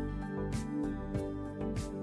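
Background music with a steady beat, led by plucked guitar.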